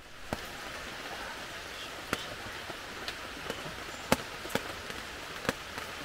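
Steady hiss with a handful of sharp ticks at irregular intervals.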